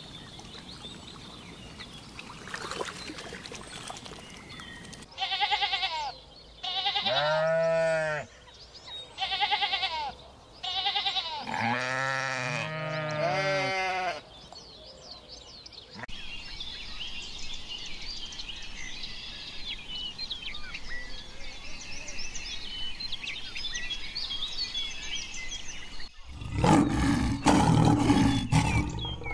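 A run of about five drawn-out animal calls, each rising and falling in pitch, then a stretch of quick high bird chirps. Near the end comes a loud, low, rough roar.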